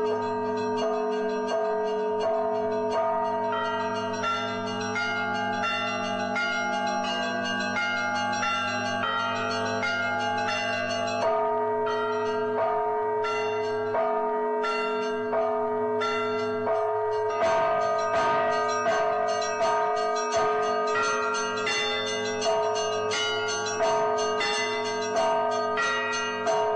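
Church bells of an Orthodox monastery chiming: several bells struck in quick succession over the sustained ring of the larger bells, the strikes growing busier and a little louder about two thirds of the way in.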